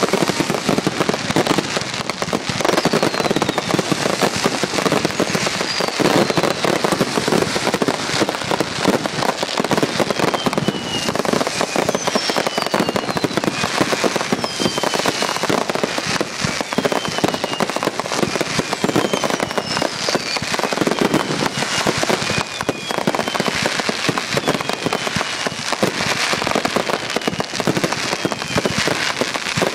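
Finale of consumer firework cakes firing from several stations at once: a dense, unbroken barrage of launches, bangs and crackling breaks. High whistling tones falling in pitch recur every couple of seconds.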